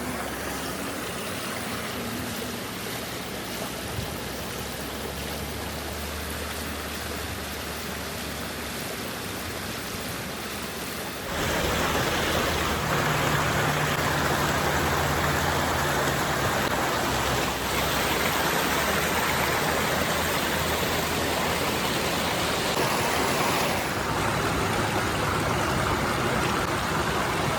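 River water rushing over rocks, a steady rush that becomes clearly louder about eleven seconds in.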